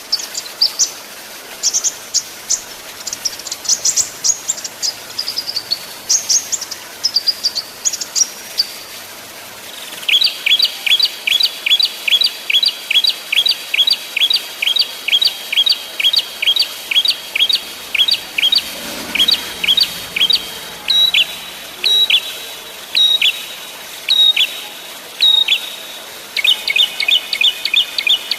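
Small songbirds calling: quick high sweeping notes in short groups, then about ten seconds in a fast run of short, sharp repeated notes, two or three a second, which slows a little and turns into a denser trill near the end.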